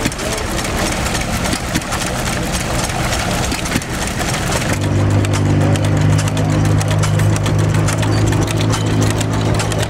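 Antique stationary flywheel engine running a water pump, with water gushing out against a splash board into a tub. A little less than five seconds in, the water noise cuts off and a second old flywheel engine is heard running with a steady low hum.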